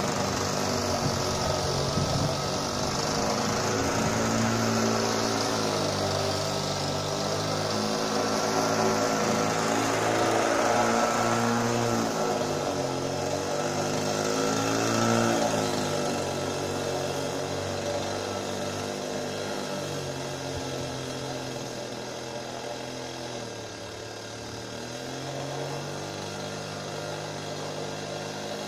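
Tomos push mower's UMO petrol engine running under load as it cuts long grass, its pitch wavering up and down as the load changes. Near the end the note sags and picks up again, and the engine grows fainter as the mower moves off.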